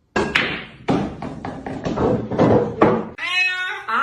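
A rapid series of thumps and taps, about a dozen over three seconds, then a voice begins near the end.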